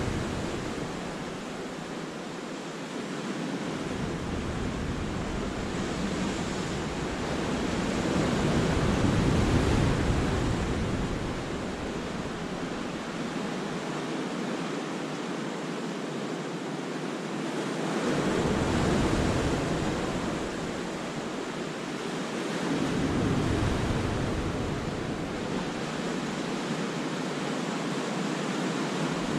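Sea waves breaking and washing over the rocks and shingle of a cove: a continuous rushing surf that swells about a third of the way in, again a little past halfway and once more a few seconds later, easing between surges.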